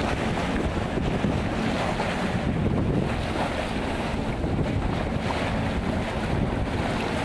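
Water rushing and splashing along the bow of a Horstman Tristar 36 trimaran's float as the boat sails through chop. Wind buffets the microphone throughout, a steady low rumble under the hiss of the water.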